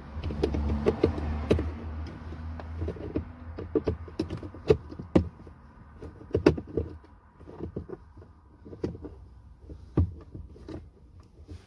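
Irregular plastic clicks and taps as a door light unit is pushed and seated into the bottom edge of a car's door trim panel. A low steady hum fades out after about three seconds.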